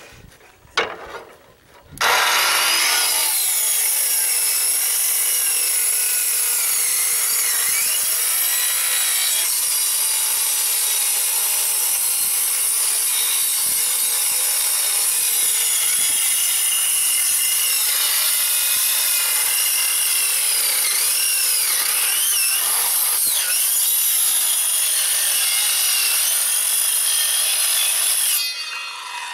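Corded circular saw cutting through the thin aluminium top of a boat fuel tank: it starts about two seconds in after a few knocks, runs loud and steady with a wavering high whine as the blade bites the metal, and winds down near the end. The user thinks the blade is getting dull.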